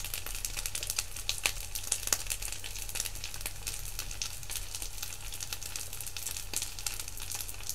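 Cheese-filled rice balls frying on an electric skillet: a steady sizzle dotted with many small crackling pops, over a low hum.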